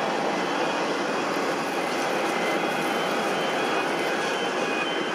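Airbus A320-214 taxiing on its CFM56-5B turbofans at low power, a steady rushing jet noise with a faint high whine.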